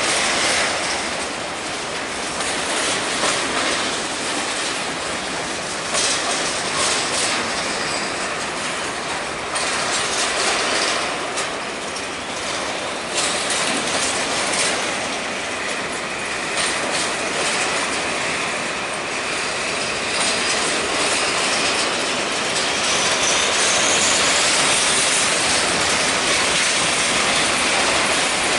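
Empty covered hopper cars of a freight train rolling past on a curve: steel wheels clicking and clanking on the rails. Near the end a thin wheel squeal rises in pitch, typical of wheel flanges grinding against the rail on a curve.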